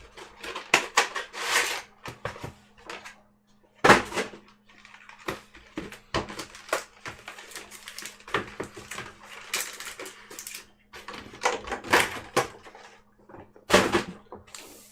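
A small cardboard trading-card box being opened and its foil booster packs handled: irregular rustling and crinkling with sharper knocks, the two loudest about four seconds in and near the end.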